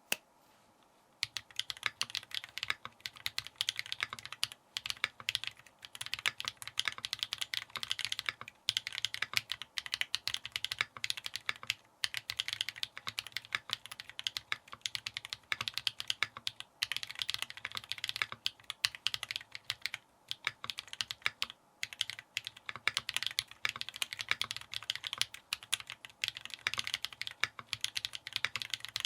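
Typing on an Adélie 40% gasket-mounted custom mechanical keyboard with a brass plate and tape mod: clean, clacky keystrokes in quick runs broken by short pauses.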